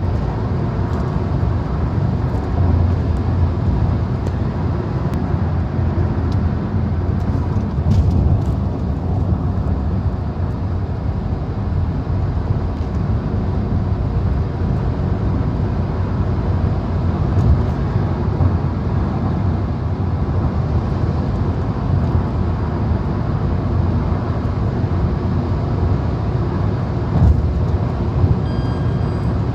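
Inside the cabin of a car cruising at highway speed, about 110 km/h in sixth gear: a steady low rumble of road and engine noise.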